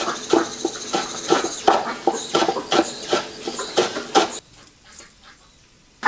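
Animals eating from a dish: a quick run of short taps and smacks that stops about four and a half seconds in.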